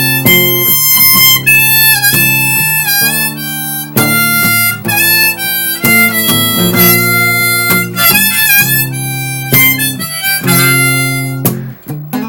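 Harmonica playing an instrumental solo break over acoustic guitar, in a bluesy country-folk style: a run of held and bent notes.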